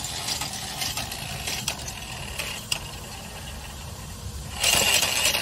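Ford front wheel hub and brake rotor spinning freely, giving scattered metallic clicks that come further apart as it slows. About four and a half seconds in, a louder rushing noise takes over.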